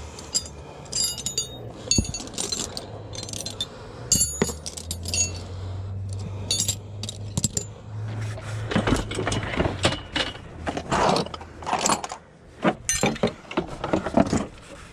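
Steel combination wrenches clinking and jangling against each other as they are picked through by hand. Duller knocks and rummaging follow in the second half.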